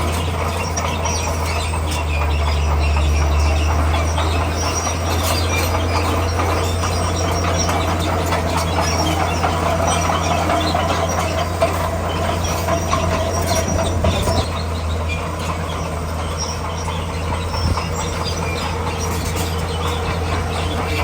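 Komatsu D41P crawler bulldozer at work: a steady low diesel engine drone that swells for a couple of seconds near the start, with squealing and clanking from its steel tracks.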